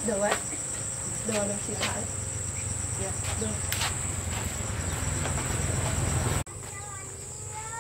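Steady high-pitched drone of insects. It breaks off abruptly about six and a half seconds in and comes back a little weaker. A few short voice sounds come in the first two seconds.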